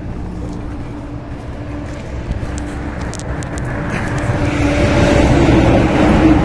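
Diesel truck engine idling steadily, with a few light metallic clicks around the middle. Toward the end a louder engine and road noise builds up.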